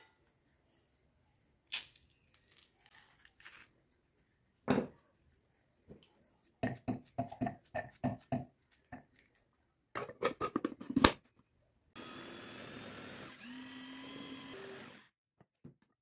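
Scattered sharp knocks and taps as bananas are handled and put into a plastic chopper bowl, loudest about eleven seconds in. Then a small electric food chopper's motor runs steadily for about three seconds, chopping the banana, its tone shifting partway through, and cuts off.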